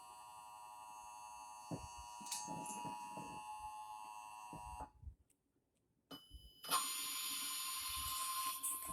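Emergency alert broadcast on a radio receiver: faint steady electronic tones, then a second of silence. A short burst follows about six seconds in, and then a steady alert tone near 1 kHz over hiss, the 1050 Hz NOAA Weather Radio warning alarm that comes before a spoken warning.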